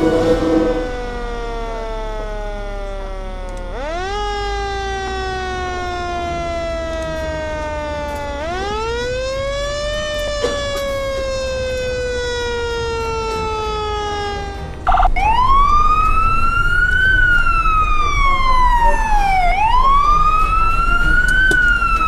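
Emergency vehicle siren responding to a call. First it rises quickly and slides slowly down, over and over; then, about two-thirds of the way through, a louder wail takes over, rising and falling evenly about every four and a half seconds.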